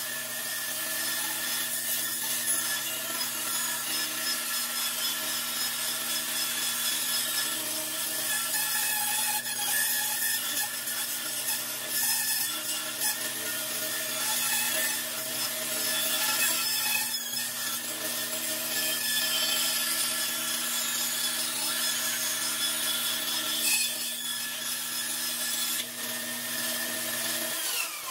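Grizzly 14-inch bandsaw running with a steady hum while its blade cuts a curved spoon-blank outline through a wooden board. Near the end the low hum stops and the pitch falls as the saw winds down.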